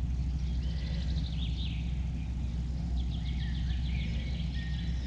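A steady low rumble, with faint bird chirps above it.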